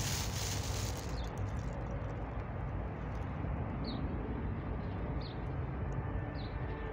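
Steady low rumble of distant city traffic, with a bird giving short high chirps, three of them about a second apart in the second half.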